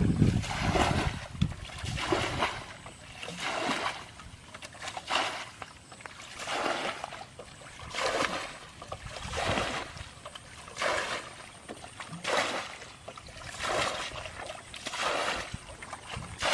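Water splashing and sloshing in a steady rhythm, one swell about every one and a half seconds.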